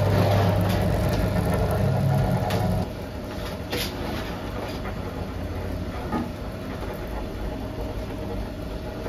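Electric dough-sheeting roller machine running with a steady hum, with a fainter steady whine above it. The hum drops in level about three seconds in, and there are a few short knocks.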